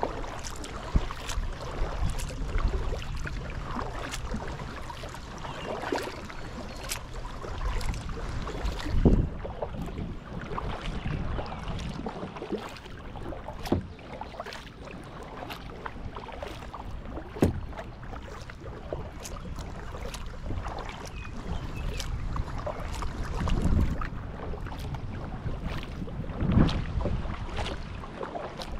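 Kayak paddle dipping and splashing, with water dripping off the blades in many small ticks. There are a few louder splashes, about nine seconds in and twice near the end.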